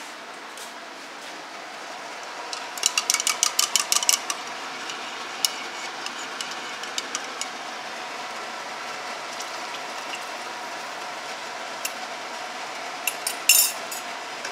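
A metal spoon clinking fast against the inside of a ceramic mug of milk: about a dozen quick taps over a second and a half, a few single clinks after, and another short run near the end. A steady background hiss runs underneath.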